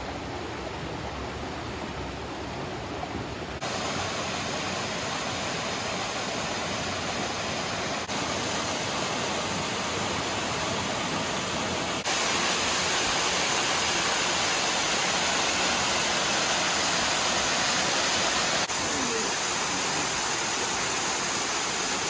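Rushing water, first a stream spilling over rocks and then a waterfall pouring into a gorge: a steady rush that gets louder in a few sudden steps and is loudest from about twelve seconds in.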